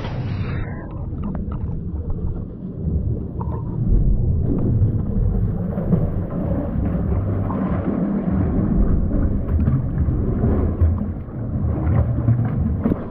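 Steady low rumbling noise of wind buffeting the microphone, mixed with sea surf.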